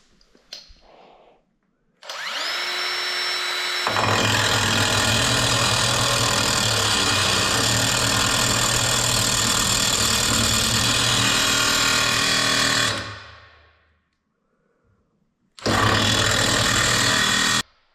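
A small handheld power grinder whines up to speed, then grinds against fibreglass for about nine seconds before winding down. A second short burst of grinding, about two seconds long, comes near the end.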